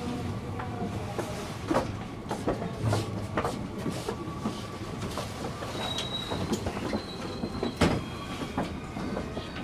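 JR West 223-series electric train rolling slowly into a station under braking, nearly at a stop. Its wheels give irregular knocks and clacks over rail joints and points, and a thin high squeal comes in about six seconds in.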